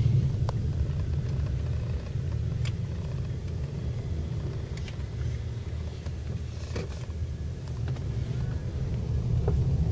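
Car driving, heard from inside the cabin: a steady low rumble of engine and road noise, with a few light clicks.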